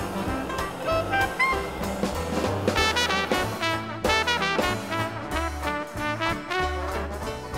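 Swing jazz background music with brass horns over a bass line.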